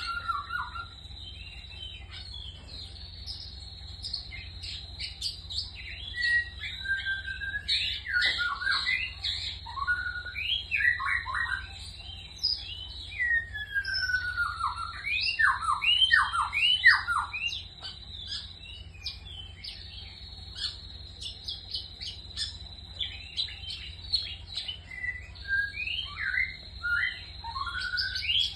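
Long-tailed shrike singing a varied, chattering song of quick slurred whistles and short sweeping notes in bursts, over a steady high thin tone and a low hum.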